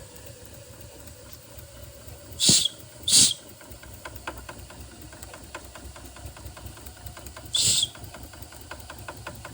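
Bing toy live steam engine running with a rapid, even ticking, broken by three short sharp hisses of escaping steam: two close together about two and a half seconds in and one about three quarters of the way through.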